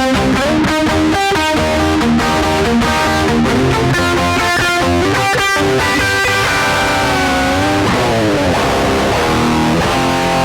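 Electric guitar, a Gibson Les Paul with a Bigsby vibrato, playing a song's intro: strummed chords for about six seconds, then held notes that waver and slide down in pitch.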